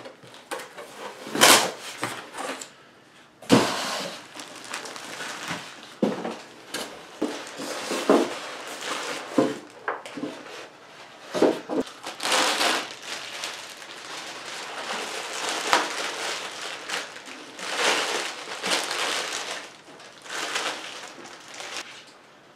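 Unboxing noises: a cardboard box and its packing handled with irregular knocks and clicks, then clear plastic bags rustling and crinkling as they are pulled off.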